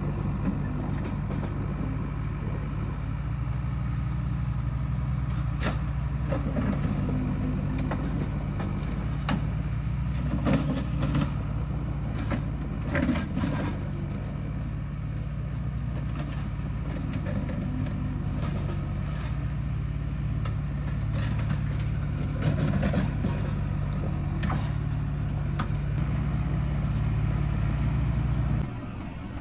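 The engine of a small tractor-backhoe runs steadily under load as it drags an old panel truck across gravel, with scattered clanks and knocks. The engine note drops off suddenly about a second before the end.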